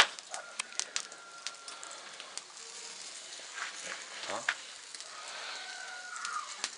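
Wood embers crackling under skewers of pork grilling over an open fire: irregular sharp pops and crackles over a faint hiss, with one loud pop right at the start.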